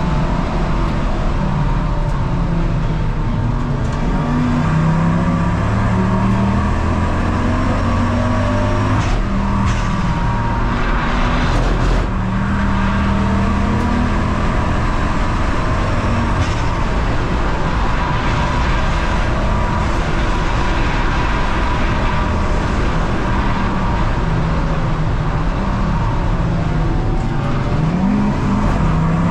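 Ford Focus Mk2 race car engine running hard on track, its pitch climbing and dropping again and again with gear changes and lifts.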